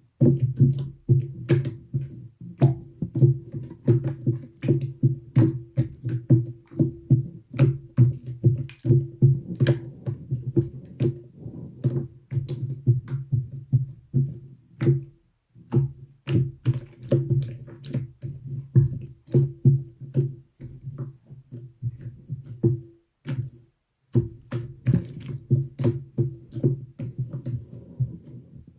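Slime being squeezed and poked, with rapid sharp clicks and pops over a steady low hum. It breaks off briefly twice.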